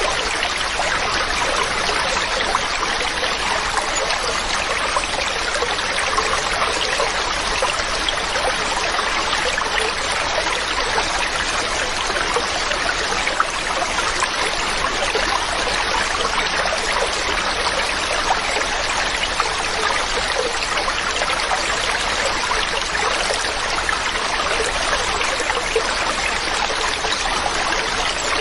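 A mountain stream running over rocks, a steady rush of water with small splashes and trickles throughout.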